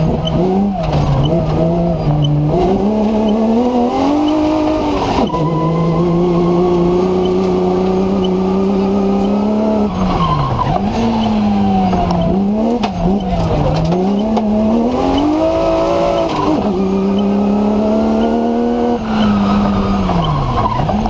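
BMW M3 engine of a TMC competition off-road racer, heard from inside the car at racing speed. It revs up and down repeatedly, with several sudden drops in pitch.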